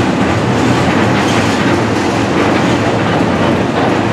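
CSX freight train's empty gondolas and covered hoppers rolling past close by: a steady, loud noise of steel wheels running on rail.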